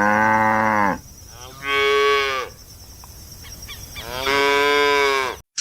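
Cow mooing three times, each moo a long, drawn-out low call, the middle one shorter.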